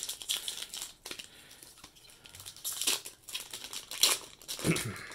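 Foil wrapper of a Magic: The Gathering booster pack crinkling as it is torn open by hand, in short irregular bursts.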